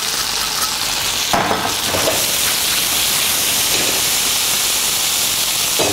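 Gnocchi sizzling in hot butter in a frying pan, a steady high hiss as they brown.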